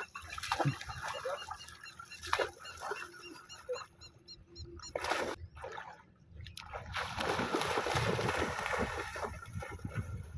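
River water splashing and sloshing around a swimming Labrador dog: scattered small splashes, a short loud burst about five seconds in, and a longer stretch of steady splashing from about seven seconds in.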